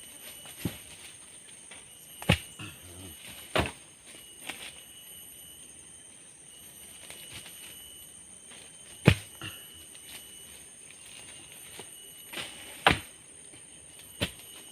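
Sharp knocks of wood being chopped, about six of them at uneven intervals, the loudest about nine seconds in, over a steady high-pitched drone of forest insects.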